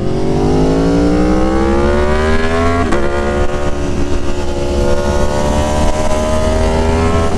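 Aprilia Tuono Factory motorcycle with an SC-Project S1 exhaust, loud, accelerating under way: the engine note rises, drops sharply with a gear change about three seconds in, then climbs again slowly in the next gear.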